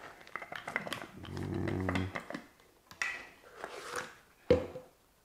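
Plastic clicks and taps as a Blendjet portable blender's lid is unscrewed and its jar handled. A low drawn-out voiced sound comes about a second in, a paper rustle around three seconds in, and a sharp knock near the end.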